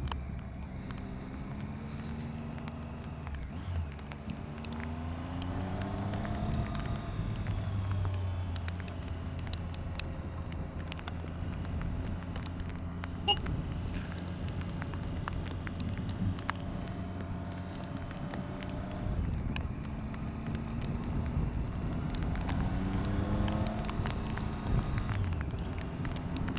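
Triumph Tiger XRx motorcycle's three-cylinder engine running under way, rising in pitch twice as it accelerates, over wind rush on the microphone. There is one sharp tap about halfway through.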